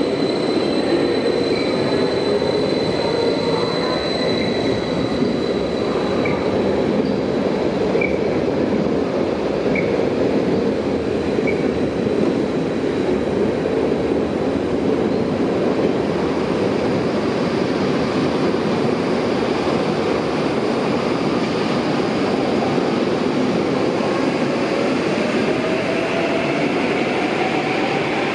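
Electric multiple unit of the Stadler FLIRT type moving through a station: a steady rumble of wheels on rail and running gear. A faint high steady whine sounds in the first few seconds, and a whine rises in pitch near the end.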